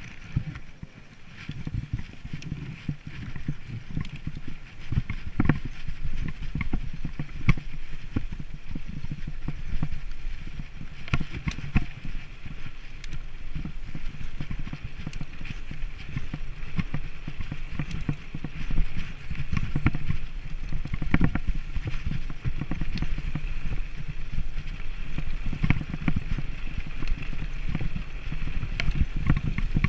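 Mountain bike riding over a bumpy dirt track, picked up by a handlebar-mounted camera: a steady rumble from the tyres and frame vibration, with irregular knocks and rattles as the bike jolts over ruts.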